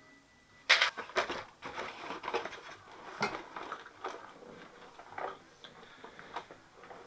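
Rummaging among small hard objects: irregular clicks and clatters of things being moved and knocking together, loudest about two-thirds of a second in and again about three seconds in.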